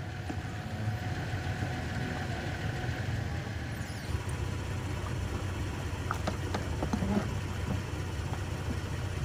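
An engine idling steadily, with a few faint clicks around the middle.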